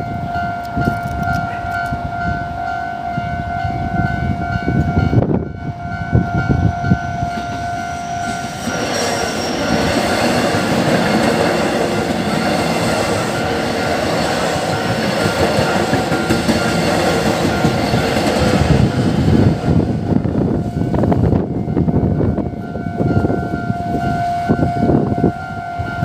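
Level-crossing warning bell ringing in a steady repeating electronic tone. About eight seconds in, an electric multiple-unit train starts passing over the crossing; its wheels and running noise cover the bell for about ten seconds. As the train fades, the bell is heard again near the end.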